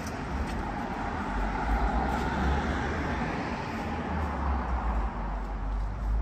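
Road traffic: a motor vehicle passing, its noise swelling about a second in and fading away, over a low rumble.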